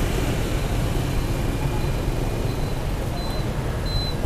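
Steady street traffic noise with a low rumble, and a faint high beep repeating a few times in the second half.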